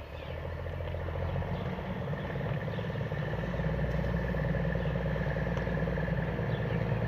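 Heavy truck's diesel engine running as it backs up with the excavator aboard, growing steadily louder.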